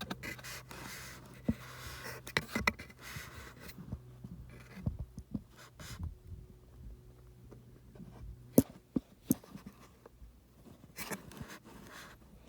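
Scratching and scraping with scattered sharp clicks as the pried-open furnace inducer motor is handled and picked at, over a faint low steady hum. The loudest click comes about two-thirds of the way in.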